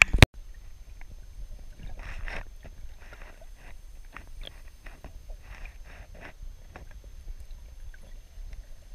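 A sharp knock just after the start, then muffled underwater sound heard through an action camera's waterproof housing: a low rumble with scattered clicks and crackles.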